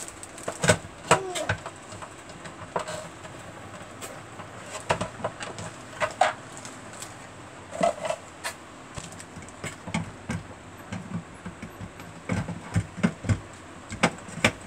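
Hard plastic parts of a juice extractor-blender being handled and fitted: irregular clicks, knocks and rattles as juicer pieces are taken off and the blender jug is set onto the motor base.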